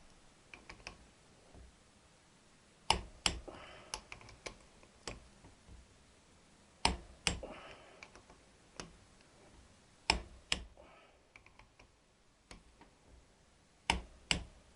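Click-type torque wrench, set to 28, breaking over as it reaches torque on a Triumph T120 connecting-rod big-end cap nut. There are four sharp double clicks about every three and a half seconds, with quieter ratchet ticks between them as the handle is swung back.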